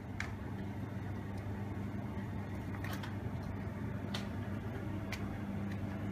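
Supermarket background noise: a steady low machine hum with a few sharp clicks scattered through it.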